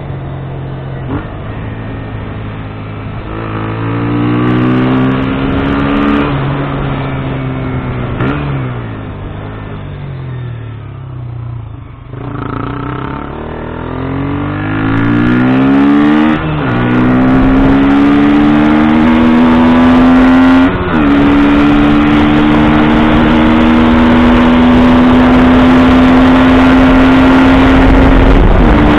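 KTM Duke 125 single-cylinder four-stroke engine pulling hard through the gears: the pitch climbs and drops sharply at each upshift, several times. Partway through the revs sag as the throttle eases off, then it accelerates again through two more shifts and settles into a high, steady cruise that slowly rises.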